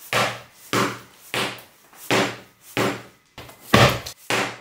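Repeated heavy knocks as a hard biscuit is banged to break it open, about seven blows roughly two-thirds of a second apart, the biscuit not yet breaking.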